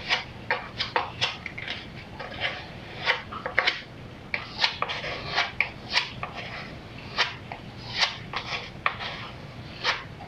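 Small metal filler knife scraping two-pack filler into countersunk screw holes on an MDF window board: short scrapes, about two a second, uneven.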